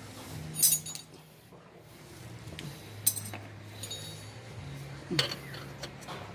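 Hand tools clinking against metal three times, each with a short ring, as a wrench and socket work on the bolts of a car's lower engine support mount.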